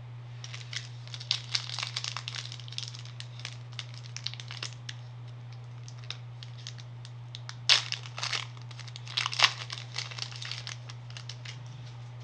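Foil wrapper of a Pokémon booster pack crinkling as it is handled and opened, a dense run of crackles, then two louder bursts of crinkling about eight and nine seconds in.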